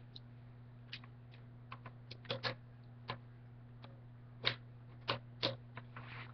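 Scattered, irregular plastic clicks and taps from handling a Nerf Retaliator blaster while trying to fit its bandolier, the louder ones about halfway through, over a steady low hum.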